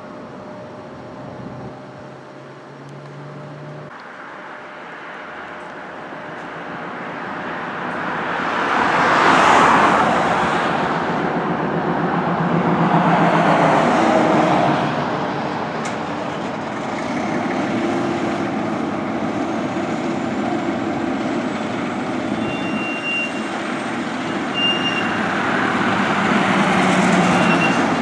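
Road traffic passing on a street: cars and a pickup truck driving by, their tyre and engine noise swelling and fading three times, loudest about a third of the way in.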